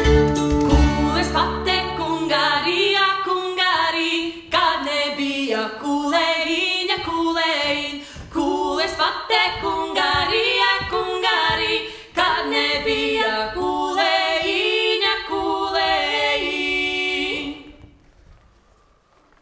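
Music: after a few seconds of instrumental playing with a low bass line, a song is sung with little or no accompaniment, ending on a held final note about seventeen seconds in.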